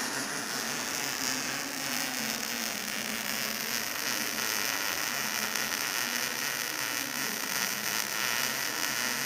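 Steady crackling hiss of a welding arc from a Stahlwerk MIG-TIG Digital 200 welder laying a continuous bead on steel, throwing sparks.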